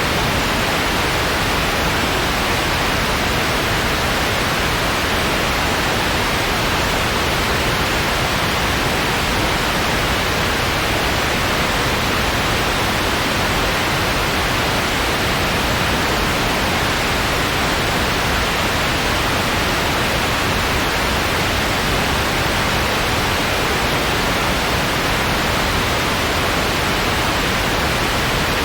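Steady white noise, an even hiss that does not change.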